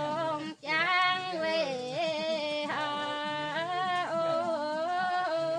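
A woman singing unaccompanied, in long held notes that bend and waver, with a brief breath about half a second in.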